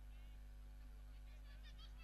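Near silence: faint field ambience under a low steady hum, with a few faint high chirps or distant calls in the second half.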